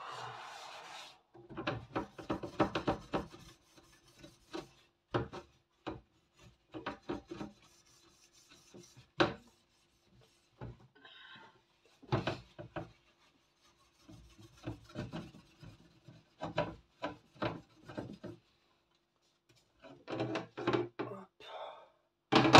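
Soap sponge scrubbed hard back and forth over the wires of a metal oven rack, a scraping rub in runs of quick strokes with short pauses between them.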